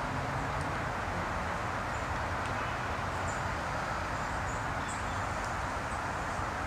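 Steady outdoor background hiss, with faint, short, high-pitched chirps of small birds scattered through the middle.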